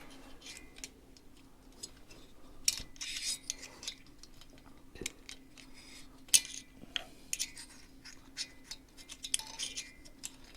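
Light metal clicks and clinks, scattered and irregular, as hand tools and engine parts are handled while the cylinder head is worked onto a small motorcycle engine, over a faint steady hum.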